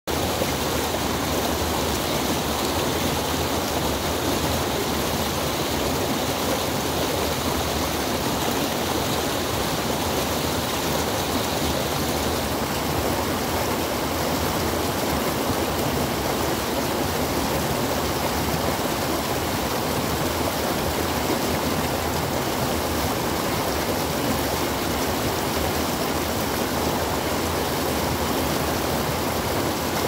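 Small rocky creek rushing and splashing over boulders in a shallow cascade of rapids, a steady, unbroken rush of water.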